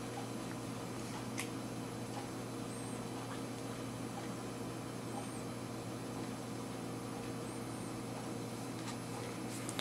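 Quiet room tone with a steady low hum, light handling noise from a DSLR and its foam viewfinder mask being turned in the hands, and one small click about a second and a half in.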